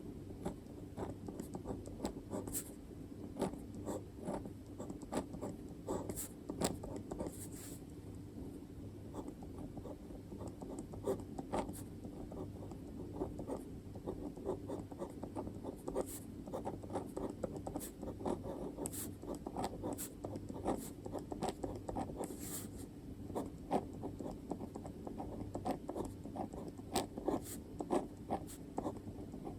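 Pen writing on paper by hand: an unbroken, irregular run of short scratching strokes and small taps, over a steady low hum.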